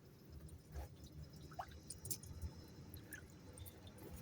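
Faint, scattered drips and small clicks over a low hum.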